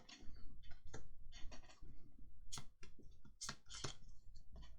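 A Pokémon card booster pack and its cards being handled: scattered small crackles and clicks from the foil wrapper and card stock.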